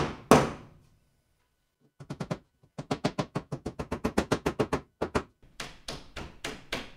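Hammer driving nails into gyprock plasterboard: one hard blow just after the start, then after a short pause a fast run of light taps, about eight a second, with a brief break about five seconds in.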